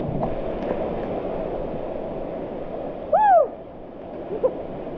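Waterfall and pool water rushing steadily, with a splash right at the start as a jumper plunges into the pool. About three seconds in comes a short rising-and-falling whoop, the loudest sound here.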